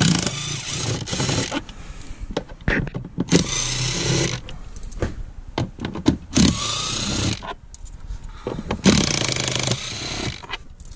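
Power drill-driver backing out four Torx screws from the factory Ram bin lid: four short runs of the motor, each spinning up and running about a second, with pauses between screws.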